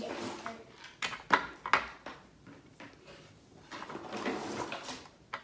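Handling noises from Play-Doh play: a few sharp clicks and knocks, two of them close together about a second and a half in, with soft rustling between.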